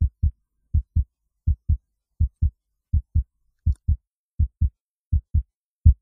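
Heartbeat sound effect: pairs of short, low lub-dub thumps, about every three-quarters of a second, steady and evenly paced. It is the beating heart of the murdered old man under the floorboards.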